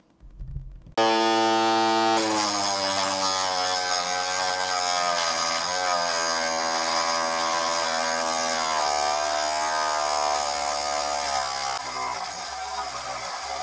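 The DIY cutoff saw's 895 DC motor switches on about a second in with a sudden high whine. Its abrasive disc then grinds through a steel rod, the motor's pitch wavering and sagging under load. The grinding eases slightly near the end.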